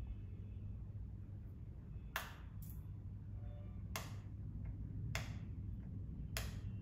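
Fine-mist pump sprayer on a small bottle of argan oil hair treatment, pressed by a finger to spritz oil into the palm: five short hissing sprays, the first two close together about two seconds in, then roughly one a second.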